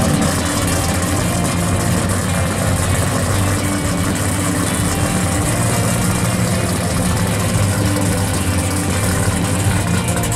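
Engine of a 1970 Plymouth Cuda pro street car idling steadily and loudly, with no revving.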